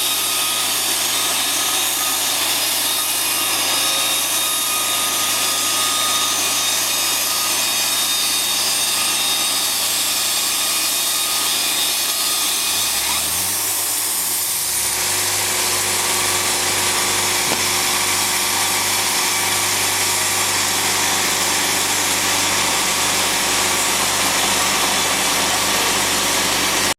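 Sawmill saw running and cutting lumber, a steady loud noise. About halfway through, a low drone dips in pitch and rises again, and the low rumble is heavier afterwards.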